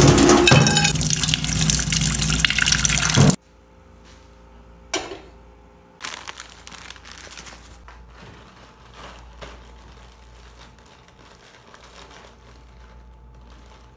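Kitchen tap water pouring into a stainless steel sink as a pot is rinsed, cutting off suddenly about three seconds in. After that, faint rustling and crinkling as a plastic instant-noodle packet is handled.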